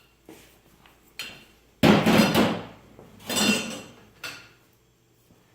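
Metal conveyor rollers clanking as spring-loaded rollers are pulled out of a roller platform's frame and handled: four separate metallic clanks, the loudest about two seconds in.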